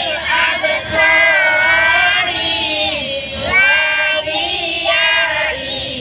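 Young children and women singing together in sustained phrases with long held notes.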